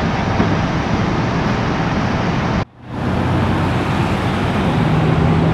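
Steady traffic and engine noise. It cuts out for a moment a little under three seconds in, then resumes, and a steady low engine hum sets in near the end, from the idling fire engine.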